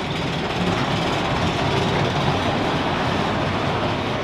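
Big Thunder Mountain Railroad's mine-train roller coaster running steadily along its steel track, heard from on board as a continuous, even wheel-and-track noise.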